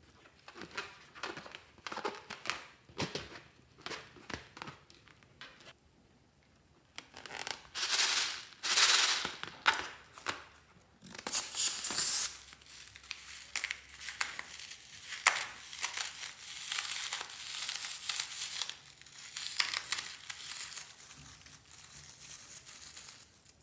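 Hands handling balloons and slime: a run of short clicks, snips and crinkling, with a few longer scrunching rushes about a third of the way through, then steady crackling.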